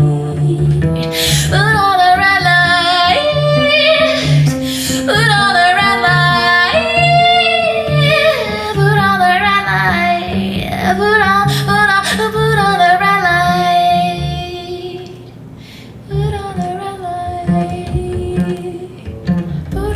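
Recorded music with a female singing voice, plucked guitar and a steady bass beat, played loud through King Sound full-range electrostatic loudspeakers. The music dips briefly about fifteen seconds in.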